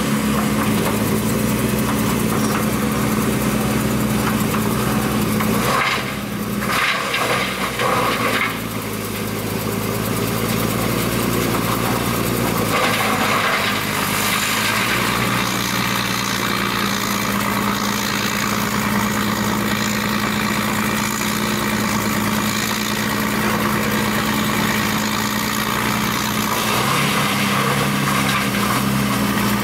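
Heavy diesel machinery running steadily as an excavator feeds wood scraps into a wood grinder. A short run of knocks and uneven dips comes about six to eight seconds in.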